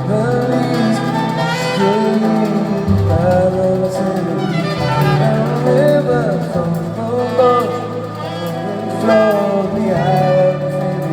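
Live band with a string section playing a slow instrumental passage between sung lines: a violin melody over a held bass and chords.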